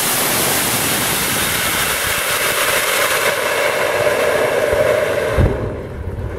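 KNDX (potassium nitrate–dextrose) solid rocket motor firing on a static test stand, its exhaust a loud steady hiss with a tone building in it over the last couple of seconds. About five and a half seconds in comes a sudden low thump, and the hiss drops away to a lower, rougher rumble of flame.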